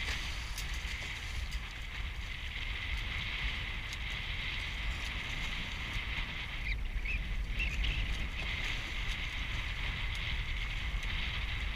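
Wind buffeting the microphone over the steady rush of water past the hulls of a Hobie 14 catamaran under sail, a constant low rumble under a hiss.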